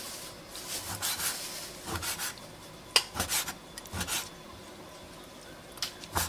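Cleaver slicing raw chicken breast on a wooden cutting board: a run of short, uneven knocks of the blade on the board, several each second, with a pause of over a second before two more strokes near the end.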